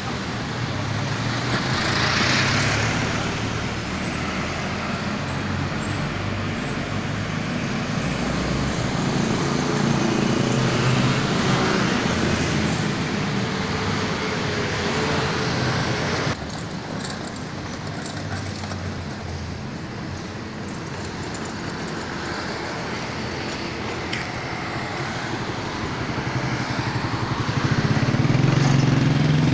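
Street traffic: a steady hum of engines and tyres, with vehicles passing close by, loudest about two seconds in and again near the end. The level drops abruptly about 16 seconds in.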